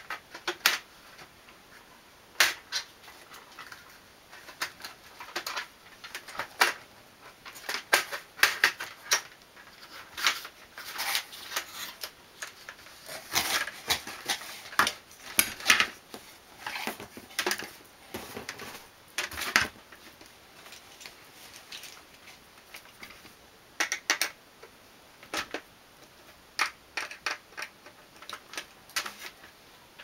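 Aluminium mounting-frame rails and plastic fittings of a window air conditioner being handled and slid together: irregular clicks, taps and short scraping rattles, sparser for a few seconds about two-thirds through.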